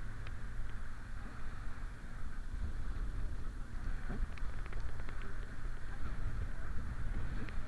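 Motorboat engine running steadily, with wind rushing over the microphone.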